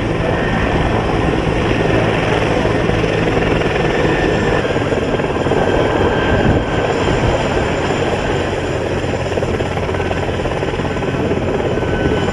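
Bell 412 twin-turbine helicopter running on the ground with its main rotor turning: a steady engine and rotor noise with a faint high turbine whine.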